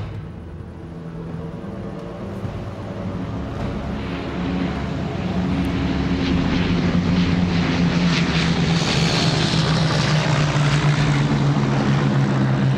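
Propeller aircraft engines droning overhead, growing louder over the first five or six seconds as the planes approach, then holding a steady drone.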